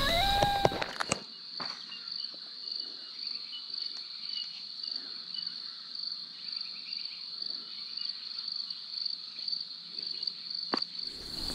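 Insects chirring steadily in one high, finely pulsing band. The first second holds the end of a wild dog howl, cut off short.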